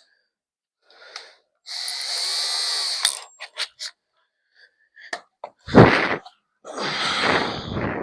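Power drill running with a small bit drilling a pilot hole through a metal air-bag mounting plate: a steady whine for about a second and a half, a few clicks, then two harsher bursts near the end.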